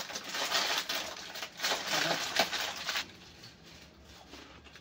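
Crinkly plastic snack packet rustling and crackling as it is torn open and handled, for about three seconds, then going much quieter.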